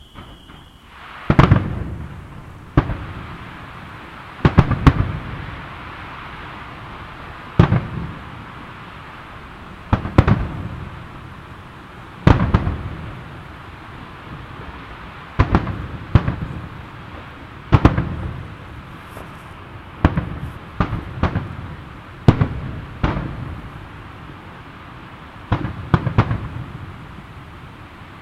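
Aerial fireworks shells bursting in a string of sharp booms, one every second or two and sometimes in quick pairs, each trailing off in a rumbling echo.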